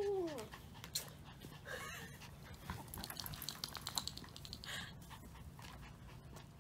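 Pomeranian giving the tail of a short rising-and-falling whine at the start, then quick, soft panting as it bounces about.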